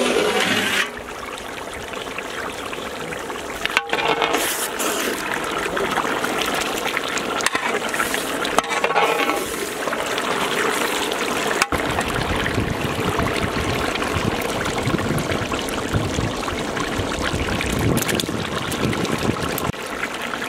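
Thick chicken curry bubbling and sizzling steadily in a large cooking pot, a crackling hiss as the masala cooks down. The oil separating out of the masala is the sign that the chicken is almost done.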